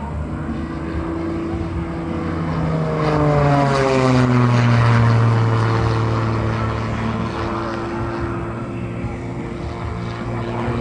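Single-engine propeller aerobatic plane flying past overhead. Its engine note falls in pitch as it goes by, and it is loudest about four to five seconds in.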